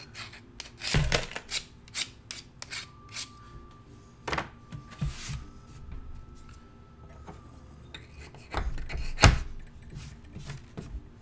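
Scraping and rasping of a small hand tool along the edge of a hardened plaster face cast, trimming it by hand. Scattered knocks and rubs come as the cast is handled, with one loud knock about nine seconds in.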